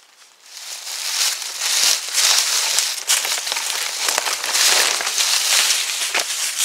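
Footsteps crunching through dry fallen leaves close to the microphone, a dense crackling with many sharp snaps. It starts about half a second in and stays loud.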